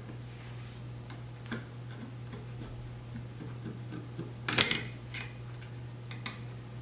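Light scattered clicks and ticks of a small screw being worked out of the unit's chassis with a screwdriver, with a louder clatter of clicks about two-thirds of the way through.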